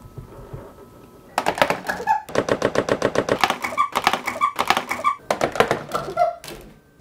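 A rapid run of loud clicks and knocks, starting about a second and a half in and lasting about five seconds, ending in a sharp crack near the end.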